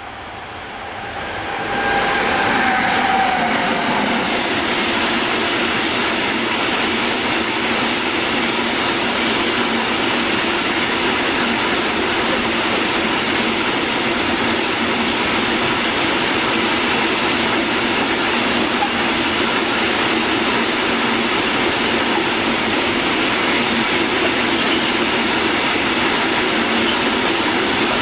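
Long freight train of hopper wagons hauled by an electric locomotive passing close by at speed: a steady loud rush and rattle of wheels on rail that builds over the first two seconds. A brief whining tone falls in pitch around three seconds in.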